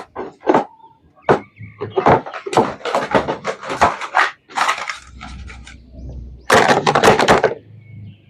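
Irregular clicks, clacks and rustling of plastic toys and packaging being handled, with two denser bursts of rustling.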